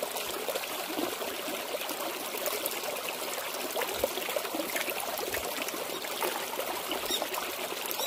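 A shallow rocky stream trickling steadily, with small splashes of hands working in the water as vegetables are washed and a face is rinsed.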